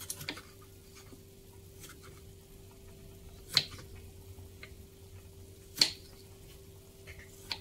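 Kitchen knife slicing through a tomato and knocking on a wooden cutting board: a few separate sharp knocks, two of them clearly louder, over a faint steady hum.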